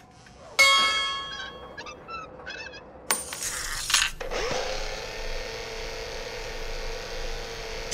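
A chain-reaction contraption: a hammer strikes a metal plate, which rings out and fades over about a second, followed by a few small metallic clinks. Then, after a burst of noise about three seconds in, the machine settles into a steady hum with a hiss over it.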